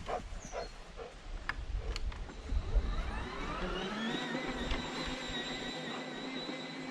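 Electric drive motor of a Stiga Twinclip 950e battery lawnmower whining. About three seconds in it spins up, rising in pitch for about a second, then holds a steady whine.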